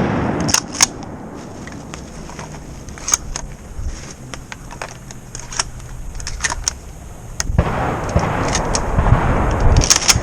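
A string of sharp, light clicks and knocks, then a rush of wind noise on the microphone from about seven and a half seconds in.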